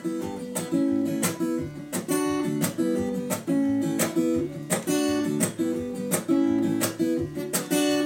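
Acoustic guitar strummed in a steady rhythmic pattern of ringing chords, with no singing.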